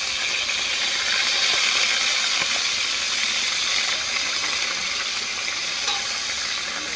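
Chicken pieces browning in hot oil in a pot, sizzling steadily, with a few light clinks of a fork against the pot as the pieces are turned.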